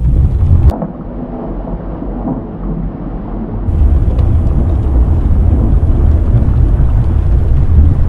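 Deep, thunder-like rumbling of an erupting volcano. About a second in it drops suddenly to a quieter, duller rumble, and at about four seconds it turns loud again.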